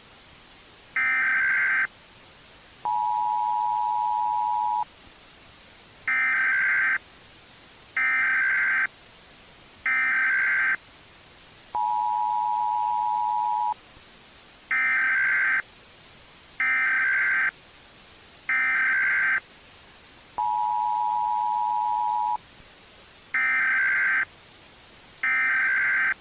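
Emergency Alert System tones in a repeating loop: three short digital data bursts about two seconds apart, then a two-second two-tone attention signal, the cycle coming round about every eight and a half seconds.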